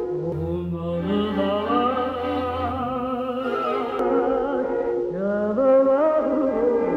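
A woman singing in an operatic style with a wide vibrato over an orchestral accompaniment, holding long notes and sliding up to a higher note about five seconds in.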